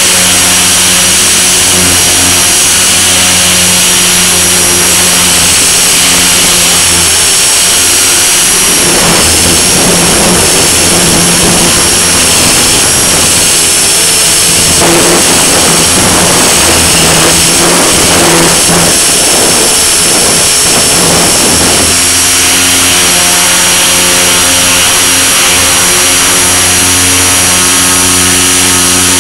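Blade mCP X BL micro RC helicopter's brushless electric motor and rotors heard from a camera riding on the airframe: a loud, steady high whine over a low hum. From about nine to twenty-two seconds in, the hum turns rougher and noisier, with rushing air, then settles back to the steady whine.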